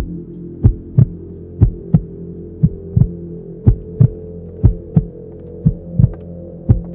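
Heartbeat sound effect: paired low thumps about once a second over a low steady drone.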